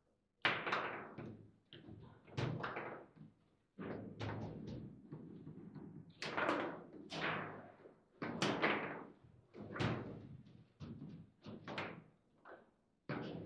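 Foosball table in play: sharp knocks and clacks of the ball striking the plastic figures and the table walls as the rods are worked, coming irregularly about one or two a second, each with a short ringing tail.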